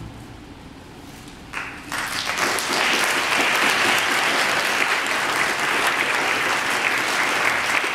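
After a brief hush, audience applause breaks out about a second and a half in, opening with a short shout, then goes on as steady, dense clapping.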